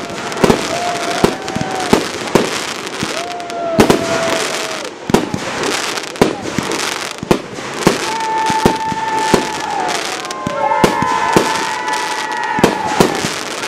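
Fireworks display: a rapid, irregular run of sharp bangs from bursting shells and cake shots, several a second, over a continuous noisy wash. In the second half, drawn-out whistle-like tones sound along with the bangs.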